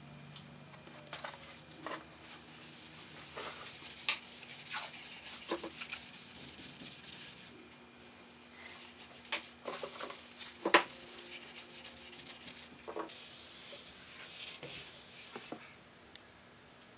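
A cloth rag rubbing oil into a rough wooden beam, in stretches of scrubbing with scattered knocks. The loudest knock comes about two-thirds of the way through.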